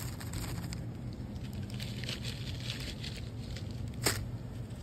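Plastic and foil packaging crinkling and rustling as it is handled, with one sharp click about four seconds in, over a steady low hum.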